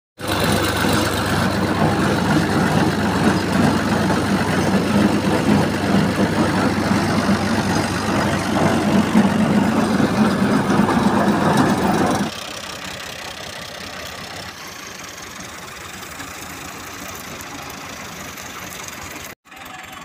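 Fiat 480 tractor's diesel engine running steadily while it tows a trolley, heard from on board. About twelve seconds in the sound drops to a much quieter steady engine noise, and it cuts out for a moment near the end.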